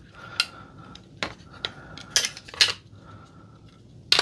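Hard plastic clicking and clacking as a plastic batarang prop replica is handled and fitted against other plastic belt pieces: several short, sharp clicks, the loudest near the end.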